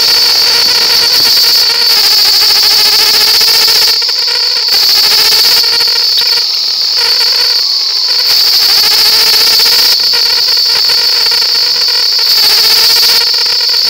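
Ride noise picked up by a camera mounted on a wheelchair hand bike rolling along a road: a loud, steady rushing hiss with a high whine held over it.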